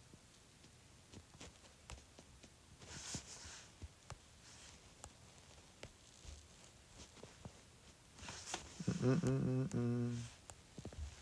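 Faint taps of a stylus on a tablet's glass screen, then about nine seconds in a man hums one low, steady note for about a second.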